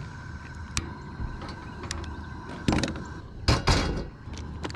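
A propane camp stove burner running with a steady hiss and faint whine, while a cast iron skillet is set down on the stove's metal grate with several sharp clanks, the loudest about three seconds in.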